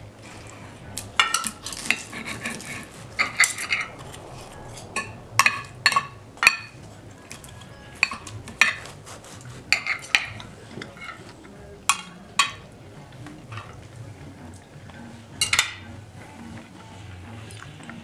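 Steel knife and fork clinking and scraping against a plate while cutting food, in irregular sharp clinks, some with a brief metallic ring.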